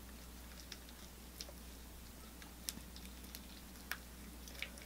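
Faint eating sounds: a handful of small, scattered clicks and smacks from chewing, over a low steady hum.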